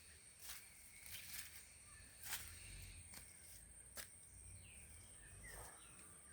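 Near silence outdoors: faint scattered clicks and rustles, with a few faint short falling chirps in the second half.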